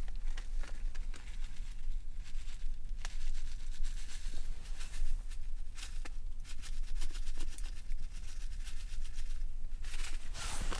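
Foil tea packet crinkling and rustling in the hand as dry tea leaves are shaken out of it into a cast-iron kettle, with a louder crinkle near the end.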